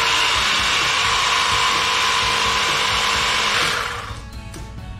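Battery-powered handheld pressure washer running steadily, its motor and pump whine under the hiss of the water spray, then stopping about three and a half seconds in.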